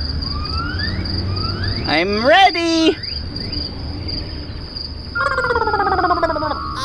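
Insects buzzing steadily with a high, pulsing tone, over a few rising calls that repeat about once a second. About five seconds in, a falling musical sound effect starts.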